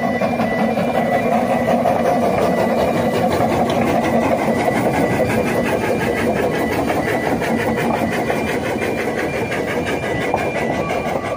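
Narrow-gauge steam train running across a road level crossing, the locomotive and its coaches passing with a steady rumble. The crossing's warning alarm sounds throughout in short alternating high tones.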